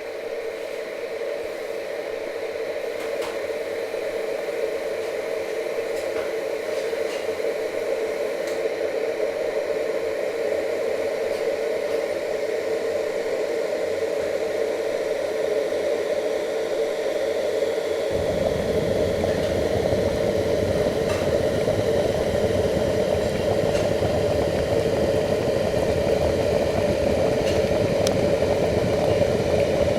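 Electric kettle heating water towards the boil: a steady rushing hiss that grows gradually louder, with a deeper rumble coming in suddenly about eighteen seconds in.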